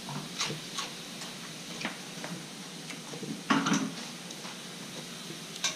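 Scattered light knocks and clinks of a frying pan and kitchen utensils being handled, with a louder clatter about three and a half seconds in.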